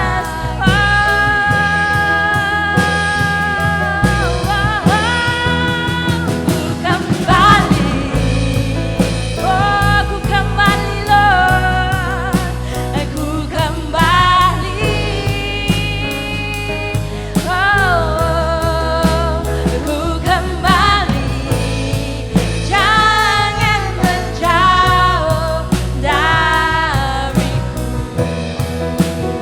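A worship song sung by a vocalist with band accompaniment: bass, keyboard and a steady beat.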